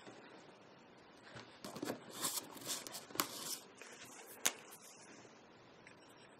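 Faint rustling and crinkling as art markers are handled, then a sharp click about two-thirds of the way through.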